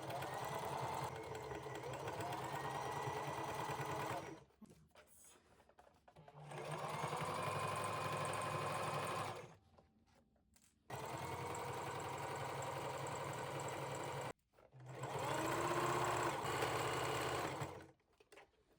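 Electric sewing machine stitching through denim, running in four steady spells of a few seconds each with short stops between them as the seam is sewn and backstitched.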